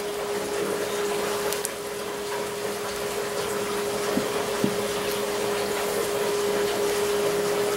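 Steady machine hum with an even rushing hiss underneath, and a couple of faint light clicks near the middle.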